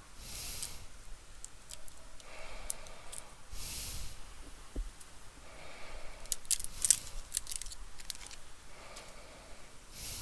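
Light clicks and taps of small hand tools handled on a laptop repair bench, most of them a cluster of sharp clicks about two-thirds of the way in. There are also three short bursts of hiss: near the start, around four seconds in, and at the very end.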